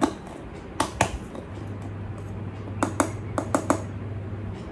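Sharp clicks and taps of a plastic cosmetic powder jar being handled and opened, in two small clusters about a second in and around three seconds in, over a low steady hum.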